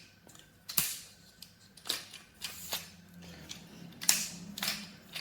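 Tripod leg flip-lock clips snapping open and shut as the telescoping legs are slid out: a series of sharp clicks, about eight in all, spread irregularly.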